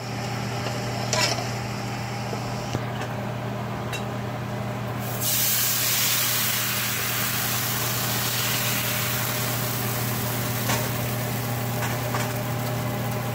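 Bánh xèo batter hitting a hot oiled frying pan and sizzling steadily, the loud hiss starting about five seconds in as the batter spreads, over a steady low hum.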